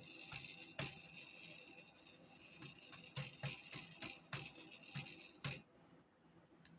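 A PC making an unexplained noise: a faint high-pitched whine of two steady tones, with irregular sharp clicks over it. The whine cuts off suddenly about five and a half seconds in.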